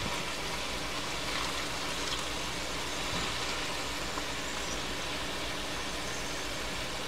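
Steady machine hum with an even hiss.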